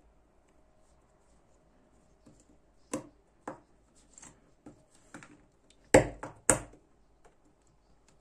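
Metal parts of a folding knife's handle clicking and tapping against each other as they are handled and fitted together. About six seconds in come two louder knocks, half a second apart.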